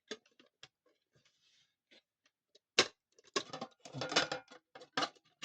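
Clicks and clatter of a wall clock's glass front and its retaining clips being handled and pressed back into place, with one sharp click about three seconds in and a busy run of knocks after it.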